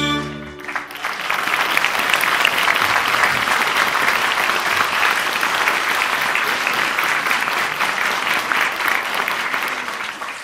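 The last chord of a folk band's fiddle and string bass stops within the first second, then an audience applauds, thinning out near the end.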